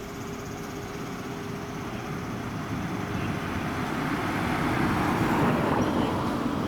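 A bus passing: engine and tyre noise building up to its loudest about five seconds in, then easing off slightly.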